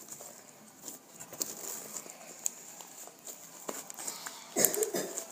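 Slime being squished and kneaded by hand, giving scattered small wet clicks and pops, with a louder burst of squishing about four and a half seconds in.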